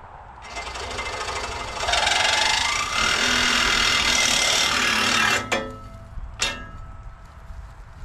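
Cordless reciprocating saw cutting through a steel leg of a deer-stand frame, running for about five seconds and then stopping, followed by two ringing metal clanks about a second apart.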